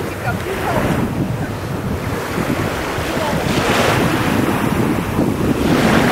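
Small sea waves washing at the shoreline, with wind buffeting the microphone. The surf hiss swells twice, once near the middle and once near the end.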